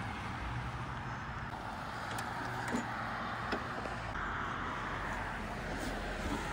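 Walk-behind lawn mower's small gasoline engine running steadily, with a few faint ticks.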